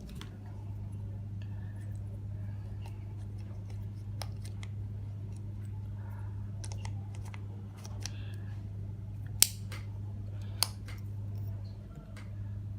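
Small plastic clicks and handling noises from a clip-on GoPro remote holder mount being worked by hand, with two sharper clicks about a second apart late on, over a steady low hum.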